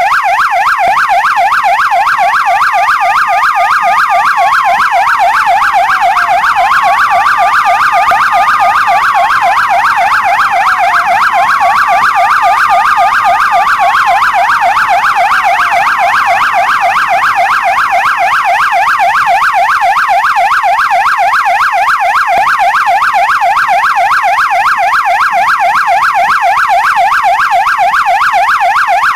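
Police siren on a rapid yelp, sweeping up and down several times a second. For roughly the first half, a slower wail runs over it: three times it rises, holds and falls, about every five seconds, then fades out.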